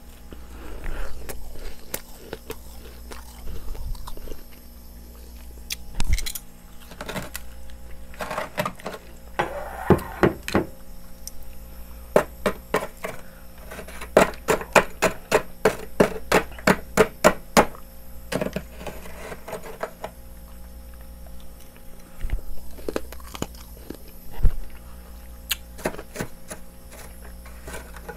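Built-up freezer frost being scraped loose and crunched in the mouth: irregular crisp scrapes and crunches, with a fast even run of about three to four crunches a second in the middle.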